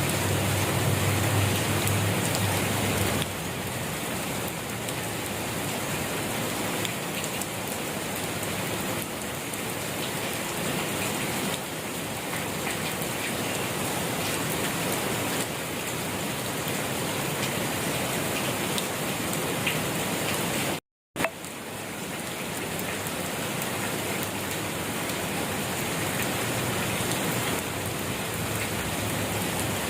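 Steady rain falling on a surface, an even hiss of many drops. About two-thirds of the way through it cuts out to silence for a split second, then carries on.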